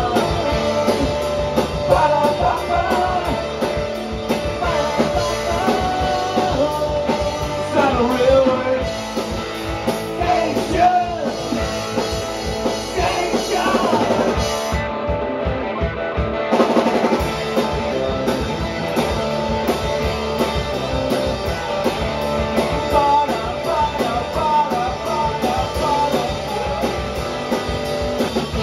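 Live rock band playing: electric guitar, electric bass and drum kit.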